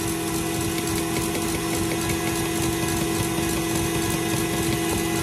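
Electric mixer with a whisk attachment running steadily at high speed, beating egg yolks into the whipped egg whites for the batter. It makes a continuous, even motor hum.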